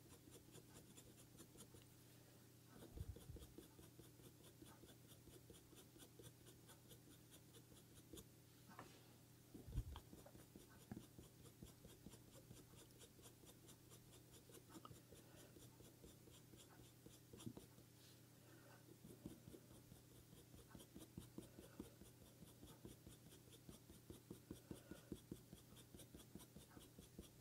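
Faint scratching of a coloured pencil on hot-press paper, short back-and-forth blending strokes that settle into a steady run of about two or three a second in the second half. Two soft low thumps come a few seconds in and about ten seconds in.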